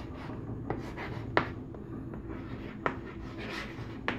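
Chalk writing on a blackboard: about four sharp taps as the chalk strikes the board, with faint scratching between the strokes.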